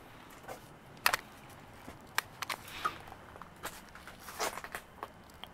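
Quiet, irregular footsteps crunching on ice, with scattered sharp crackles.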